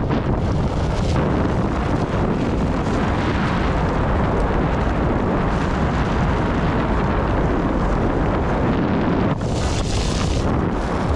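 Wind buffeting the microphone while riding: a heavy, steady rumble, with a brighter hiss for about a second near the end.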